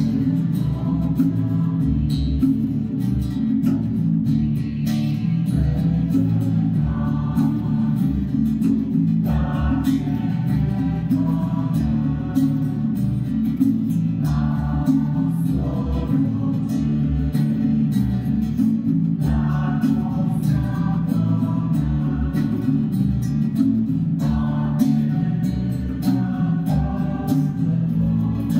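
A small church choir singing a Polish Christmas carol (kolęda) in phrases, with strummed acoustic guitar accompaniment.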